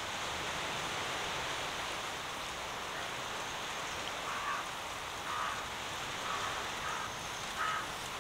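Steady hissing ambient noise, with about five short bird-like chirps in the second half.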